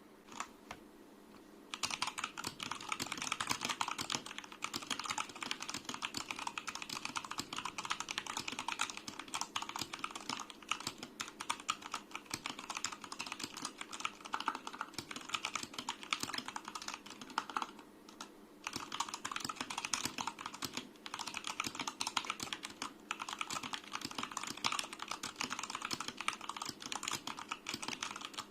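Royal Kludge RK61 60% mechanical keyboard with Royal Kludge Red linear switches being typed on in a fast, continuous run of keystrokes. The typing starts about two seconds in and breaks briefly a little past halfway.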